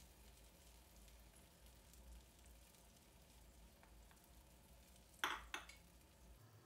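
Pancakes frying in a pan, a faint soft sizzle over a low hum, with two sharp clicks a moment apart about five seconds in.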